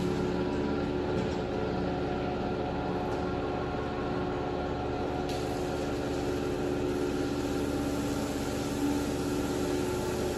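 Pressure washer running steadily, its motor and pump giving a constant hum under the hiss of the water jet spraying a soaked rug.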